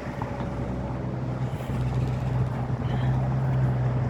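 Heavy diesel engine of construction machinery running steadily, a constant low drone that grows a little louder toward the end.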